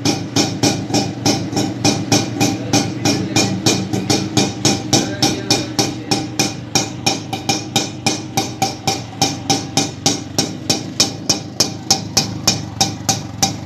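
Vehicle engine running at a slow, even idle, its exhaust beating about four times a second over a steady drone.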